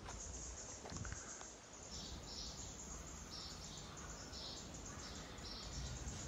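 Faint outdoor forest ambience: a string of short high chirps from small creatures, repeating roughly every half second over a low, steady background noise.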